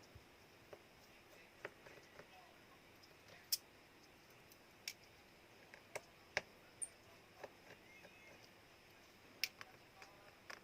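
Irregular small, sharp clicks and taps, about a dozen, from tools and plastic parts being handled while a Samsung Galaxy A02s phone is taken apart. The loudest click comes about three and a half seconds in.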